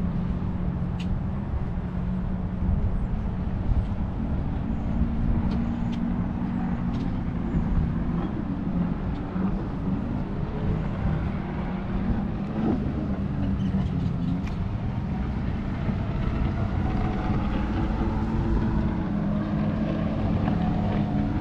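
A distant engine running steadily, its hum drifting slowly in pitch, over a low rumble of wind on the microphone.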